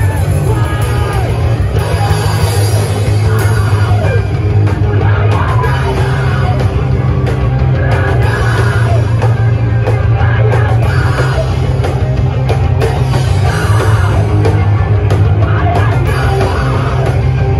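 Loud live rock band playing distorted electric guitar and drums, with shouted vocals. The sound is a dense, unbroken wall with a heavy low end, as heard from inside the crowd.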